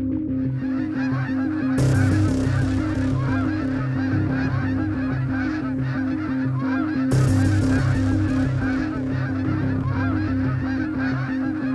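A large flock of geese honking continuously, many calls overlapping. Underneath is a music track with a held drone and a pulsing bass, and two whooshing swells come about two and seven seconds in.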